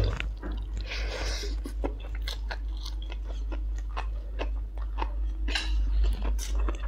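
Close-miked chewing of a mouthful of stir-fried instant noodles, with many short, irregular mouth clicks.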